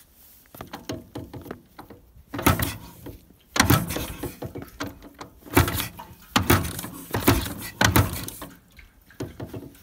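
Kick-starting a 1969 Ural motorcycle's flat-twin engine: about six irregular kicks, each a short rush of noise as the engine turns over, without the engine catching and running.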